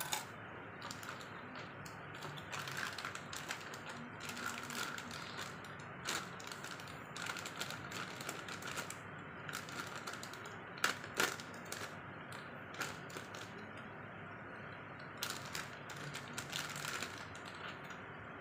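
Clear plastic packaging bags crinkling and rustling as the small plastic parts of an action figure are unwrapped and handled, with irregular clicks of hard plastic pieces. One sharper click comes about eleven seconds in.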